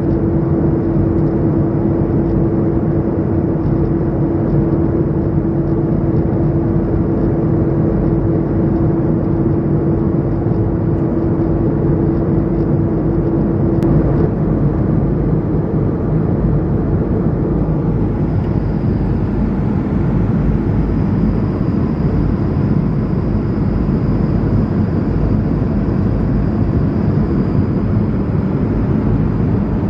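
Airbus A220-100 cabin noise: a steady rush and engine drone. A steady hum runs through it and stops about halfway through.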